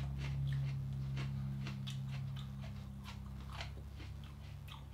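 Chewing on whole raw Aji Omnicolour chilli pods, which are crunchy: irregular small crisp crunches. A steady low hum runs underneath, louder in the first half.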